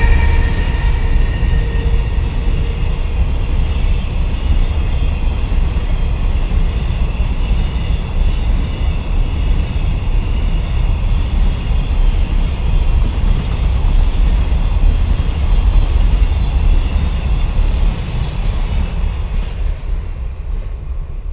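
Container freight train wagons rolling past at speed, a steady loud low rolling noise from wheels on rail. The EH500 electric locomotive's inverter whine, several steady tones, trails off in the first few seconds. The noise falls away near the end as the last wagons pass.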